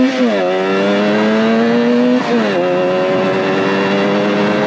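Suzuki GT185's two-stroke twin engine pulling hard under way. Its pitch climbs, drops sharply just after the start and again a little past two seconds in as gears are shifted, then holds nearly steady.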